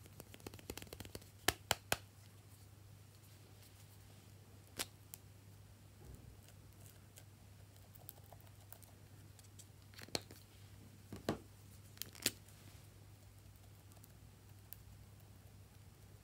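Small plastic stamper toys clicking and tapping as they are handled and pressed into a bowl of slime: several sharp clicks in the first two seconds, one near the middle, and a few more later on, over a faint steady low hum.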